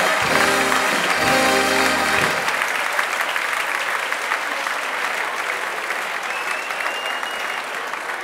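Audience applauding as a song ends on held chords about two seconds in; the applause then slowly dies down.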